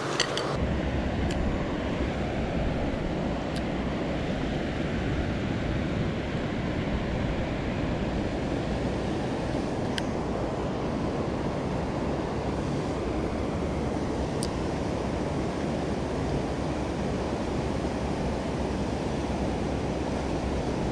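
Steady rush of a fast river running over rocks and riffles, with a few faint ticks.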